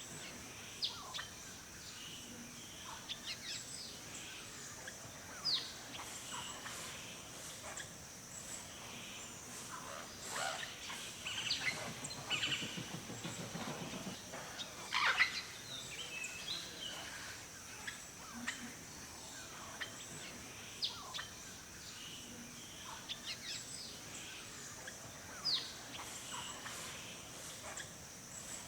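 Forest birdsong: many short chirps and quick falling whistles from several birds, busiest in the middle, over a steady high-pitched background drone. A low rattling, pulsing sound runs briefly about twelve seconds in.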